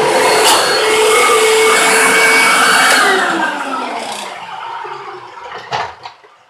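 Hoover WindTunnel Self-Propelled Ultra upright vacuum running with a steady whine while it cleans a rug. About three seconds in the motor winds down: its whine falls in pitch and the noise fades away, with a couple of brief knocks near the end.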